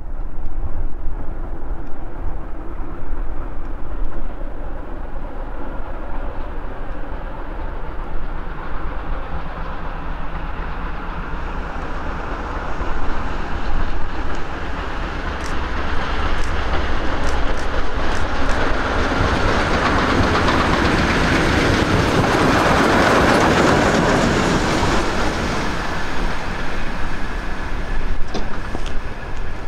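Steam locomotive 58 311, a German class 58 three-cylinder 2-10-0 freight engine, hauling a train and coming closer, its running noise growing louder to a peak about three quarters of the way through and then easing a little as it reaches the crossing. A steady low rumble lies underneath throughout.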